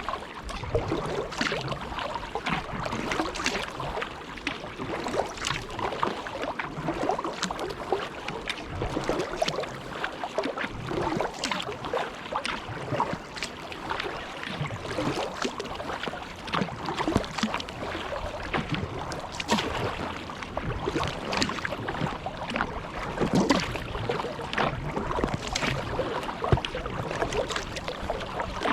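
Kayak paddle strokes dipping and splashing in the water, with drips and water slapping at the hull in a continuous, irregular patter.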